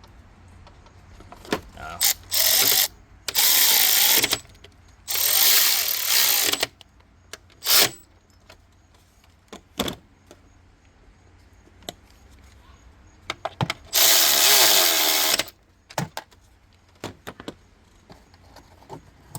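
Handheld power tool whirring in short bursts, running bolts back in during engine reassembly. There are four bursts of about a second each in the first eight seconds, then a longer burst at about fourteen seconds.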